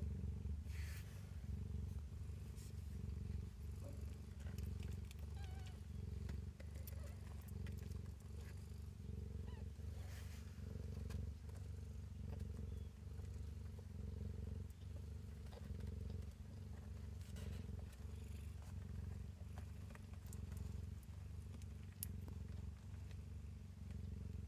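Nursing mother cat purring steadily, a low rumble that swells and fades in a regular cycle.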